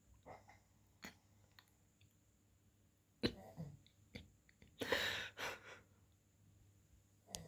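A sleeping man snoring and snorting: a sharp snort about three seconds in, then a longer noisy snore about five seconds in, with a few faint clicks between.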